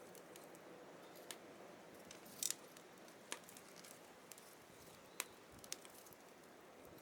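Faint scattered sharp clicks and pops at irregular intervals, the loudest a quick cluster about two and a half seconds in, over a quiet steady hum.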